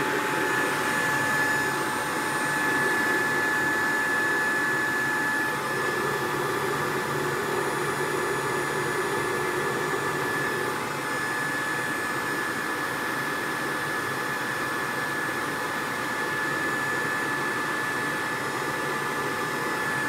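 Electric blower running steadily, pushing air through a sheet-metal venturi burner box: a steady rush of air with a high motor whine.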